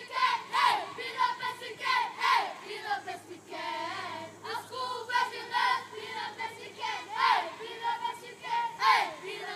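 A group of children singing together in short phrases that rise and fall.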